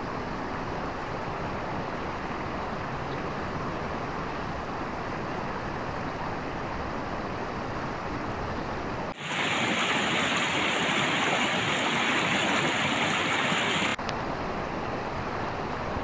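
Steady rush of a rocky mountain river and waterfall. About nine seconds in it switches suddenly to a louder, hissier rush, and about five seconds later it drops back just as suddenly.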